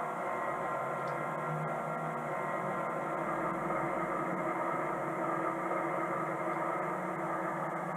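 Model train running on the layout, giving a steady hum and rumble with no sudden changes.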